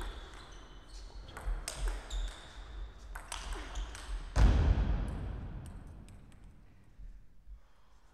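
Table tennis ball clicking sharply off paddles and table in a quick rally, then a single louder thump about four and a half seconds in that fades away in the hall.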